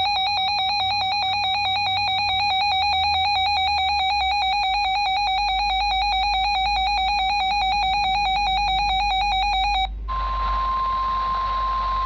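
A weather radio's built-in alarm beeps in a fast, buzzy warble for about ten seconds. About ten seconds in it cuts over to the steady 1050 Hz NOAA Weather Radio warning alarm tone, which signals that a severe weather warning is about to be read.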